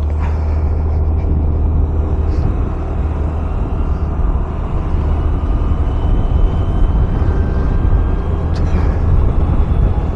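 Riding noise from a Honda Dio 110cc scooter under way: a heavy, steady low wind rumble on the microphone over the scooter's engine and road noise, with a faint whine slowly rising in pitch.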